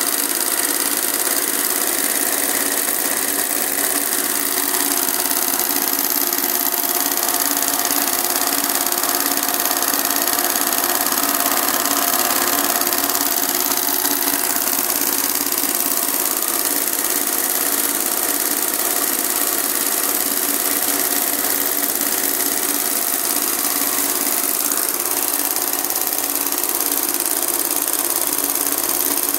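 Industrial embroidery machine stitching gold thread into fabric, its motor and needle running at a steady speed without a pause.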